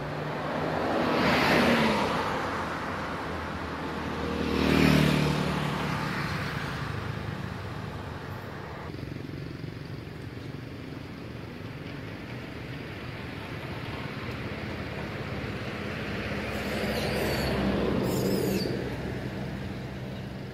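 Motor vehicles passing on a road, each one swelling and fading: two quick passes in the first six seconds and a slower one near the end, over a steady traffic hum.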